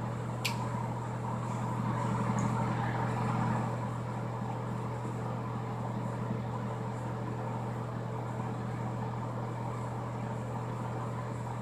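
Steady hum and airy rush of a bathroom exhaust fan running, with one short click about half a second in.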